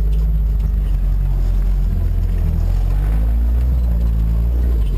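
Suzuki 4x4's engine running under way off-road, its note shifting up and down with the throttle.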